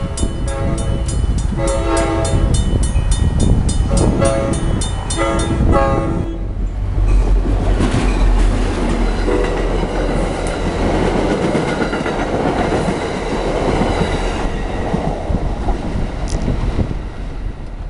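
Railroad crossing bell ringing rapidly while an NJ Transit commuter train sounds its horn in several blasts. About six seconds in the bell stops, and the train's passing rumble and wheel noise take over.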